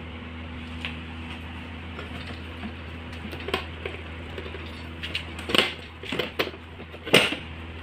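The retractable chrome tube-frame footrest of an executive office chair being pulled out from under the seat, giving several sharp metal clacks and rattles, the loudest near the end. A steady low hum runs underneath, the chair's plugged-in massage vibrator running.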